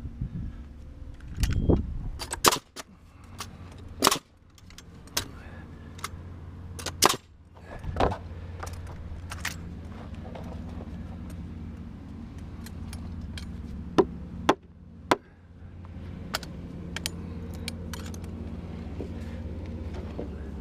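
Wooden framing studs and plates knocking and clacking as they are handled and set down, about a dozen sharp separate hits, the loudest in the first eight seconds and a quick pair about two thirds of the way through. A steady low hum runs underneath.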